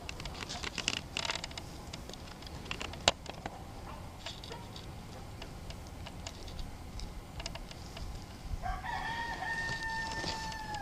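Backyard chickens: scattered light taps and clicks with one sharp click about three seconds in, then near the end a rooster crows, one long held note that starts to drop in pitch as it closes.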